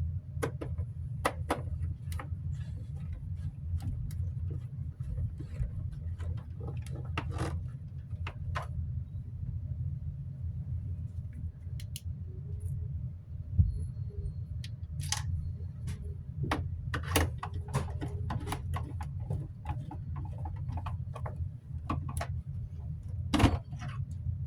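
Scattered small clicks and knocks of plastic fan housing parts and screws being handled during reassembly, with a sharper knock about halfway through and another near the end, over a steady low hum.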